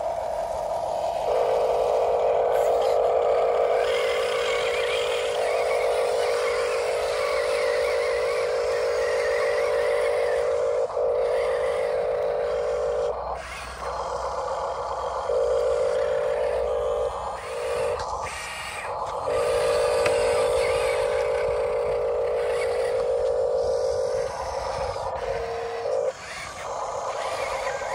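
Small electric motors and gearboxes of radio-controlled model construction vehicles whining at a steady pitch, switching on and off in runs of a few seconds.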